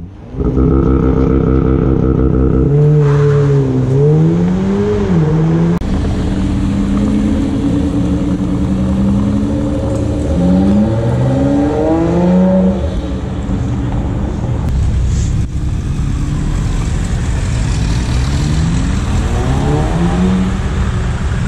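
Performance car engines revving hard as cars pull away from a car meet, the revs rising and dropping again and again in three spells: about a sixth of the way in, around the middle, and near the end.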